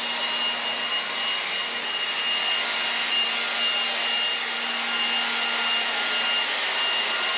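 Battery-powered leaf blower running steadily, a rush of air with a steady high whine, blowing dirt and dust off a barn aisle floor.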